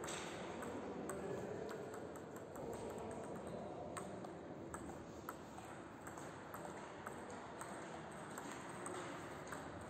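Table tennis rally: the plastic ball clicking sharply off the rackets and bouncing on the table, a hit or bounce every half second or so. One racket is a DHS Hurricane Long 5 blade with Hurricane 3 rubbers.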